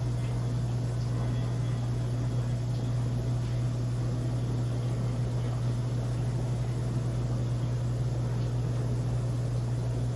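Steady low electrical hum with a soft hiss, unchanging throughout, typical of an aquarium pump running.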